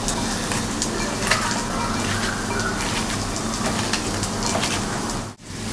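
A hand tossing and squeezing raw sliced red onions with salt in a glass bowl: irregular crisp crackles and rustles over a steady hiss and low hum. The sound drops out briefly near the end.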